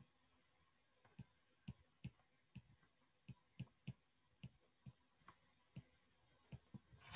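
Faint, irregular clicks of a stylus tapping on a tablet screen while writing, about two a second, over near silence.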